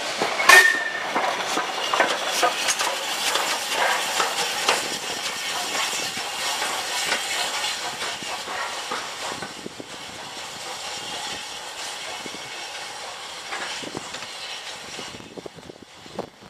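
LMS Ivatt Class 4MT 2-6-0 steam locomotive 43106 moving on the track: steam hiss, with wheels clanking and clicking over the rail joints. There is a brief high tone about half a second in, and the sound fades as the engine draws away.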